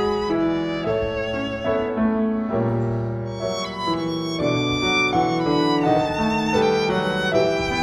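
A violin and a Bösendorfer grand piano playing a chamber piece together: bowed violin notes with vibrato over the piano accompaniment, the notes changing every half second or so.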